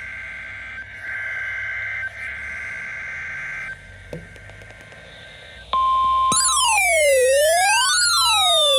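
Weather radio SAME digital header: a steady two-tone data buzz in bursts that breaks off about four seconds in. Near six seconds the weather radio's warning alarm tone starts as one steady tone, and is soon buried under loud electronic tones that slide downward and swoop up and down in a repeating siren-like pattern, the loudest part.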